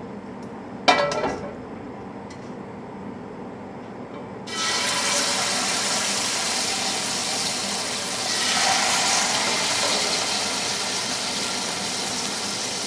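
Marinated chicken thighs hitting hot olive oil in a stainless steel sauté pan: a sizzle starts suddenly about four and a half seconds in and grows louder around eight seconds as more pieces go in. A single short ringing clink comes about a second in.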